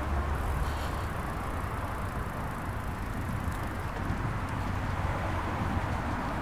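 Steady rushing wind and road noise on a bicycle ride camera, with street traffic around.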